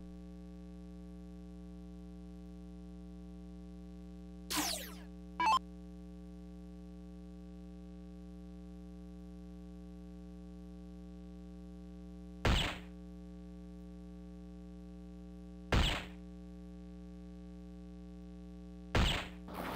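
Steady mains hum with short, sharp hit sounds from a soft-tip electronic dartboard as darts land: two near the start, then three a few seconds apart, two of them bullseyes.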